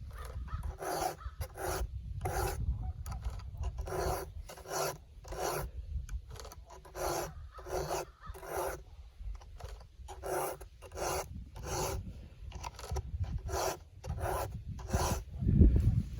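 Hand file rasping across the cutter teeth of a chainsaw chain in steady back-and-forth strokes, about three every two seconds, with a short pause about nine seconds in. A dull low knock near the end is the loudest moment.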